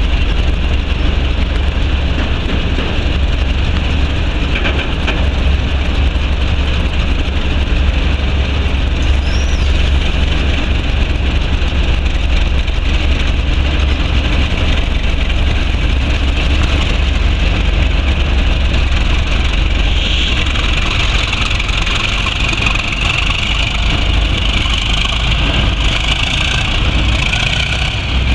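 Two Class 37 diesel-electric locomotives with English Electric V12 engines, running steadily and then working as they pull away with a train. A higher note grows stronger in the last third as the leading locomotive draws past.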